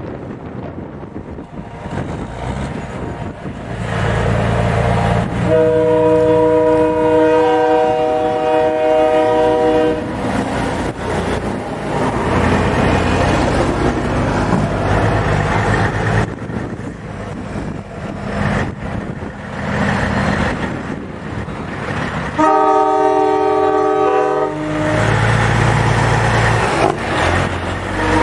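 Semi-truck multi-tone air horns sounding two long chords: the first lasts about four seconds and starts around five seconds in, the second is shorter and comes near the end. Under them is the steady rumble of diesel truck engines rolling past.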